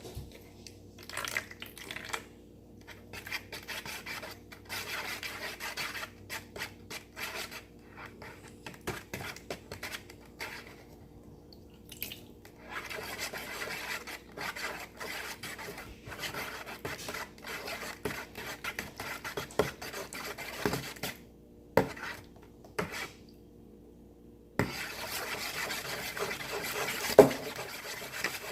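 Slime being mixed in a bowl with a utensil: irregular scraping and rubbing strokes with short pauses, and a few sharp clinks of the utensil against the bowl.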